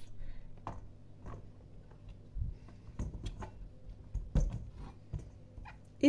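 Vegetables being handled and set down into a stainless-steel bowl: a few scattered soft knocks and thuds, the loudest about four and a half seconds in.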